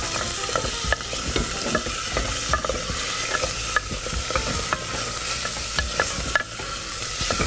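Mutton pieces sizzling in hot oil in an open pressure cooker while a wooden spatula stirs them, tapping and scraping against the pot several times a second.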